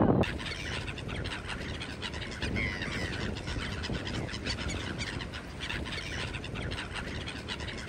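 A flock of gulls calling again and again, over small waves washing onto the beach.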